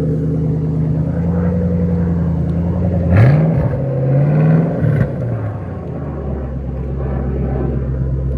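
2012 Shelby GT500's supercharged 5.4-litre V8, fitted with a smaller VMP supercharger pulley, idling steadily. About three seconds in it is revved twice in quick succession, a short blip and then a longer rev, before falling back to idle.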